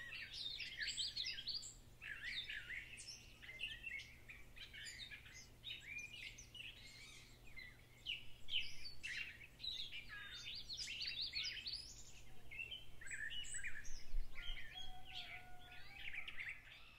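Many small birds chirping and calling at once, a busy chorus of short, high chirps and trills.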